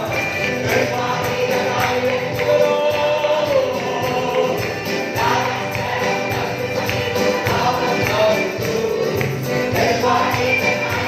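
A choir singing a gospel-style Christian praise hymn in Arabic over music with a steady percussion beat.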